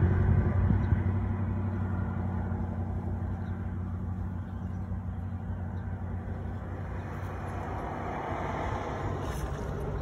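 A motor engine running with a steady low rumble, loudest at the start and fading within the first couple of seconds to a lower steady drone.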